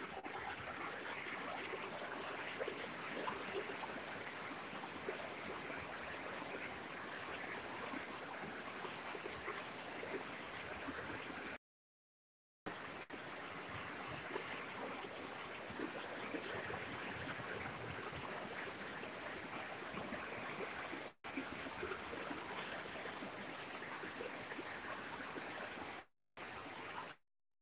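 Heavy rain falling steadily, a dense even hiss. The sound cuts out completely for about a second midway and for brief moments near the end.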